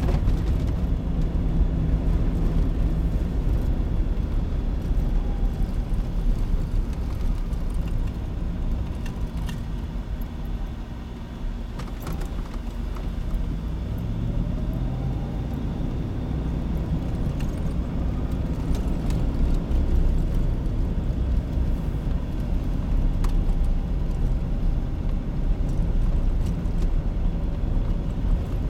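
Vehicle driving on a snow-packed road, heard from inside the cabin: a steady low engine and tyre rumble whose engine note rises and falls a few times with speed, with a few faint clicks.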